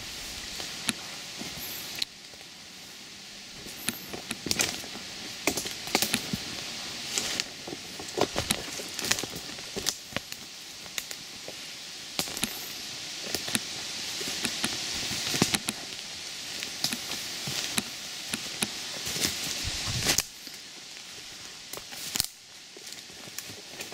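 Footsteps through forest undergrowth, with leaves and brush rustling and dry twigs snapping underfoot at an irregular walking pace.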